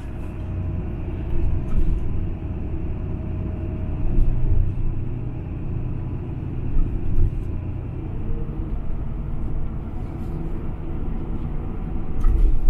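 Steady low vehicle rumble that swells louder a few times.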